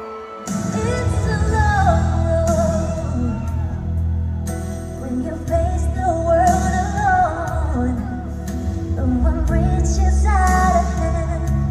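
A woman singing a slow melody live into a handheld microphone over amplified backing music, with a deep bass line that comes in about half a second in.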